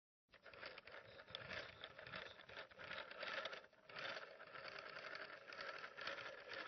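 Antique rotary telephone dial being turned and released digit after digit, its spring-driven mechanism running back with a fast clicking whirr. One dip in the rattle comes about halfway through.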